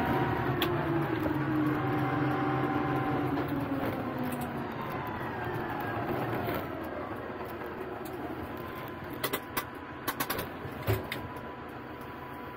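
Lindner Lintrac 75 LS tractor engine running, its pitch falling as it slows, then settling to a quieter steady hum close to idle. A few sharp clicks come near the end.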